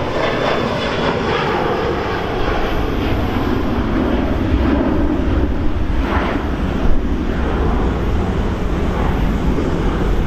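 Airliner jet engines running loud and close, a steady roar whose deep low rumble grows stronger about halfway through.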